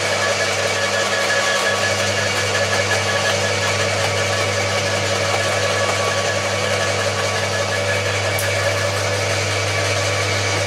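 Two electric roller (quiet-type) garden shredders, a Bosch AXT 2300 and an Atika LH 2500, running together while chewing thuja hedge cuttings. They make a steady, geared drone: a low hum with a few fixed whining tones above it. The hum steps up slightly about two seconds in.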